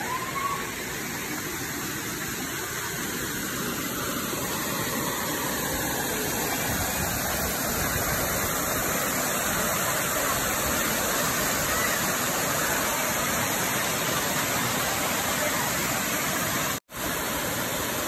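Waterfall cascades pouring into a rock pool, a steady rush of water that cuts out for a split second near the end.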